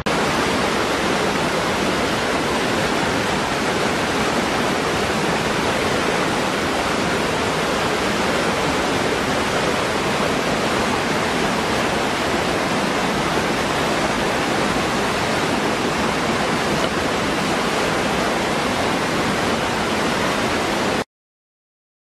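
Waterfall with a steady, even rush of falling water that cuts off suddenly about 21 seconds in.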